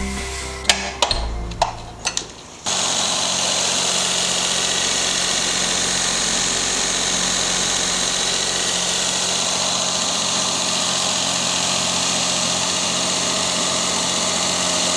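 A few sharp clicks, then a machine starts running abruptly about two and a half seconds in and runs steadily at an even level until near the end.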